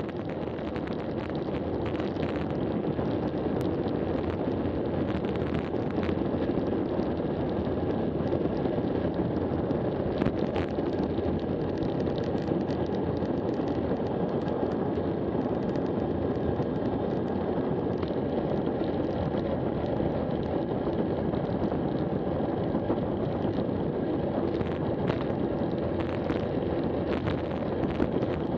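Wind buffeting an action camera's microphone on a road bike descending at about 60 km/h, with the tyres rolling on asphalt and occasional small knocks from the road surface. It fades in over the first two seconds, then stays a steady rush.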